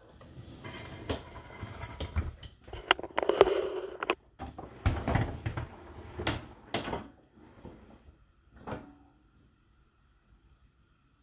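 Dishwasher racks and washed dishes being handled: a run of rattling, clinks and knocks for about seven seconds, then one last knock.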